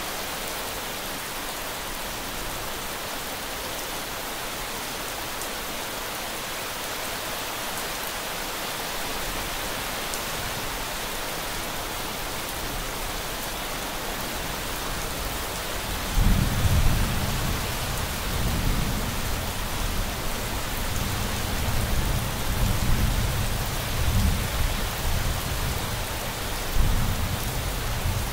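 Steady rain falling, an even hiss. A little past halfway, deep thunder starts rumbling and rolls on in swelling and fading waves to the end.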